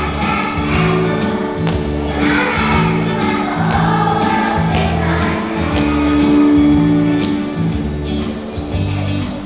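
Young children singing a song together over a backing track with a steady beat.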